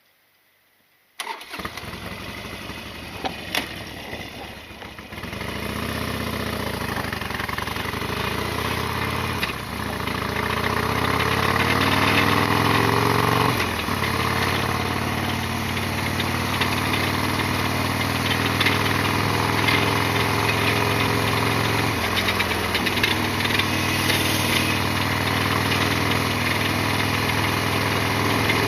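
Harley-Davidson Sportster XL1200R's air-cooled 1200 cc V-twin starting about a second in, then running at idle, its speed wandering up and dipping a few times.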